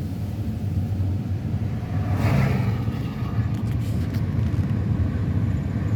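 Car cabin noise while driving: a steady low engine and road rumble, with a brief swell of rushing noise about two seconds in.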